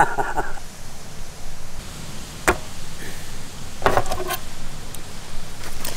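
Fish being handled on a wide metal tray: a few sharp knocks and taps, one about two and a half seconds in, a quick cluster near four seconds and another near the end, over a steady background hiss.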